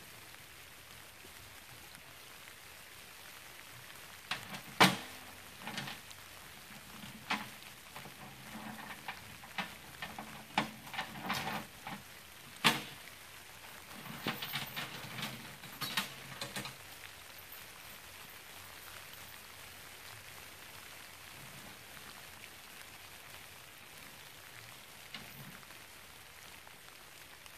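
Light rain falling steadily, with a run of sharp knocks, clicks and rustling in the middle stretch, the loudest knock about five seconds in.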